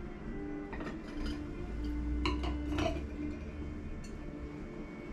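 Several light clinks and taps of wine glasses being handled on a table, the loudest two close together near the middle, over quiet background music.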